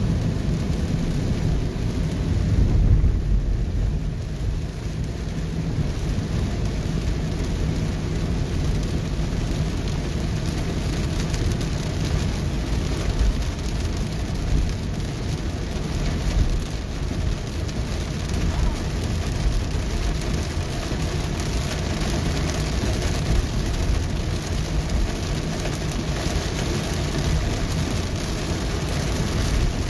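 Heavy rain hitting a car's roof and windshield, heard from inside the cabin, over steady tyre noise on the wet road. A low rumble swells briefly about three seconds in.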